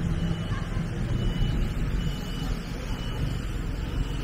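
City street ambience: a steady low rumble of traffic with people talking in the background, and a faint short high beep repeating about once a second.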